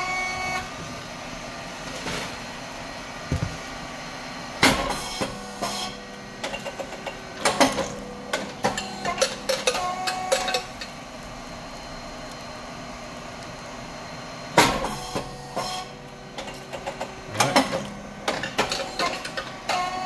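Hydraulic puffed rice cake machine popping a batch of three rectangular rice cakes: a sharp bang as the heated moulds open and the cakes puff, twice about ten seconds apart, each followed by a few seconds of clattering as the feeding plate pushes the cakes out into the tray. A steady hum from the hydraulic pump and cooling fan runs underneath.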